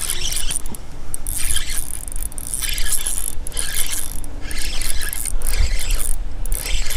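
Spinning reel being cranked to bring in a hooked bass, its gears whirring and clicking in repeated bursts about once a second.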